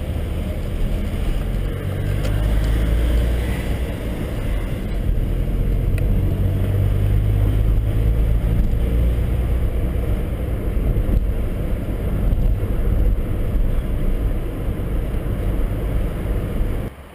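A car driving, heard from inside the cabin: a steady low rumble of road and engine noise that cuts off suddenly near the end.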